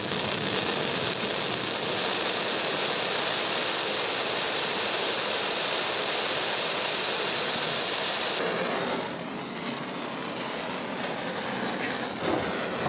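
Handheld gas blowtorch on a blue screw-on cartridge burning with a steady hiss as its flame is played over wood. About eight seconds in, the hiss drops to a quieter, lower rushing sound.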